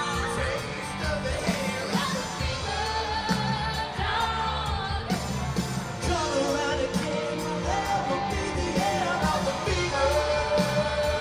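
A live rock song from a stage band: several voices singing together over guitars and a drum kit.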